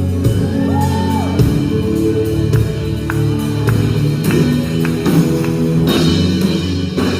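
Worship band music playing without singing, with drums and sustained instruments.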